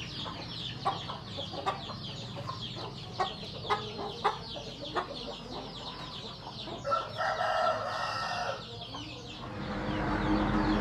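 Chickens: many quick high chirps and clucks, with a rooster crowing about seven seconds in. A low steady hum with a rushing noise builds up near the end.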